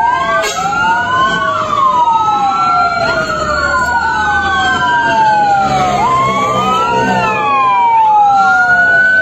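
Fire engine sirens wailing, several at once, their overlapping tones rising and falling slowly and out of step with each other.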